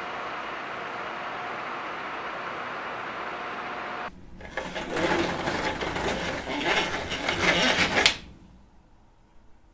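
Steady hum of distant night-time city traffic. After a cut this gives way to a loud, quickly ticking rattle that builds for about three and a half seconds: a slatted roller shutter being lowered over a window. It ends in a sharp knock as the shutter meets the sill, and stops abruptly.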